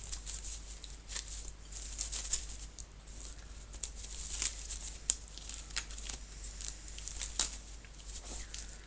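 Scattered small clicks and rustles at an irregular pace, over a steady low hum.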